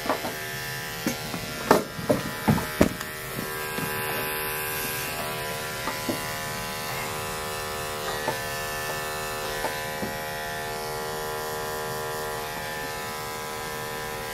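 Electric grooming clippers running with a steady buzzing hum as they shave through a cat's matted coat. A few sharp clicks and knocks come in the first three seconds.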